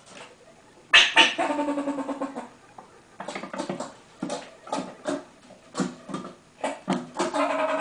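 A person's voice about a second in, then a series of irregular knocks and rattles.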